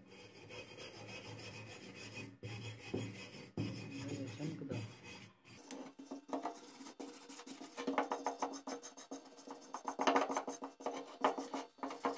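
Hand wire brush scrubbing rust off a meat grinder's metal housing in quick back-and-forth strokes, harder and louder in the second half.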